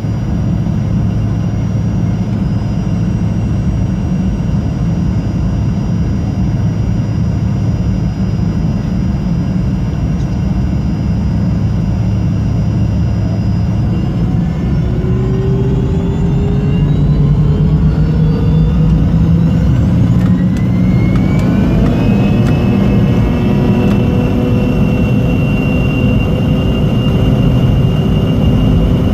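Fokker 70's Rolls-Royce Tay turbofan engines: a steady low rumble, then from about halfway through the engines spool up with a rising whine that levels off into a high, steady whine at takeoff power.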